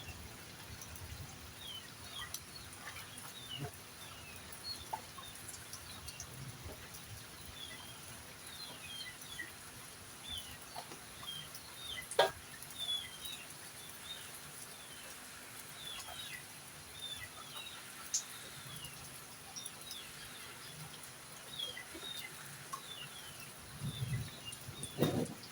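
Birds chirping over and over in short, high, falling chirps, with a single sharp click about halfway through.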